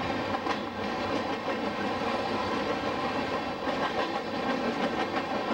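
Freight train of open-top coal cars rolling past: a steady rumble of steel wheels on rail, with scattered clicks as the wheels cross rail joints.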